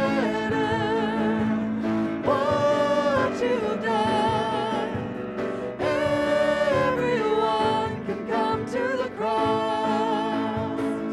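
A vocal trio of two women and a man singing a worship song over instrumental accompaniment, in phrases of long held notes with vibrato.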